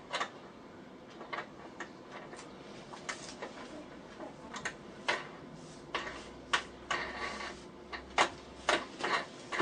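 Hardwood pieces being handled and shifted in a cast-iron bench vise: scattered light clicks and knocks of wood against wood and metal, with a brief scraping rub about seven seconds in.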